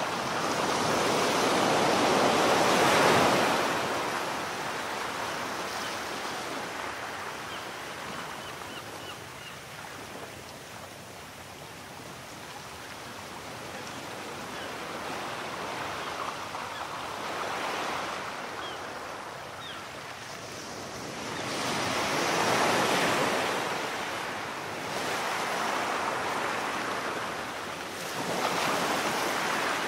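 Small waves breaking and washing up a sandy beach. The surf swells and fades every few seconds, loudest near the start and again about two-thirds of the way through.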